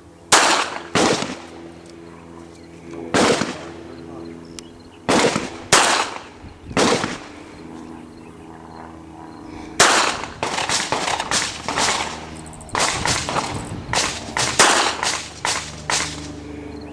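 Pistol gunshots, among them a .32 pistol. There are six single shots spread over the first seven seconds, a pause, then a fast, irregular run of many shots from about ten seconds in. The run holds more shots than a five-shot gun, so more than one gun is firing.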